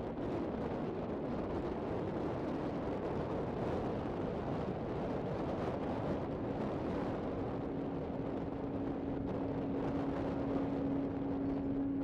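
Wind blowing across the microphone, a steady rushing rumble. About halfway through, a steady droning tone comes in under it and grows louder.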